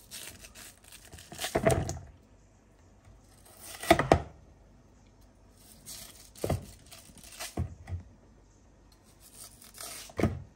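A kitchen knife paring and slicing a peeled yam by hand, with short scraping strokes of the blade through the flesh in four separate bursts. There are a few sharp knocks among the strokes.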